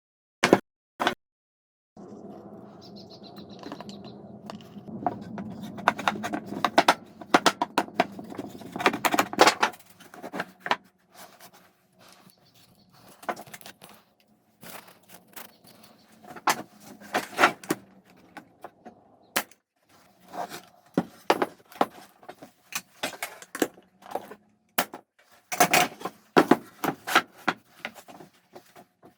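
Irregular series of sharp knocks and clatters, with a steady low hum that starts about two seconds in and stops about ten seconds in.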